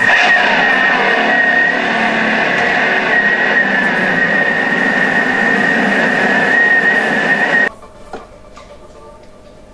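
Thermomix kitchen machine's motor running steadily with a high whine as it whisks cookie dough, cutting off suddenly after about eight seconds.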